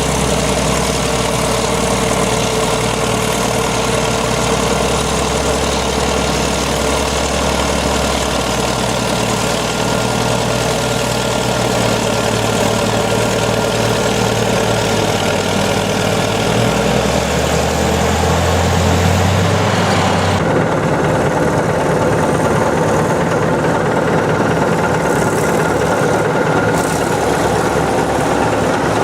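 Heavy Caterpillar diesel engines of a DW20 scraper and D7E crawler dozer running steadily while loading dirt, the engine pitch rising for a few seconds before the sound changes abruptly about two-thirds of the way through.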